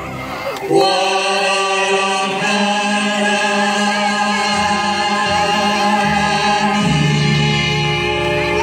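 Mariachi song with singing: voices and instruments hold long sustained notes, the chord shifting about two and seven seconds in.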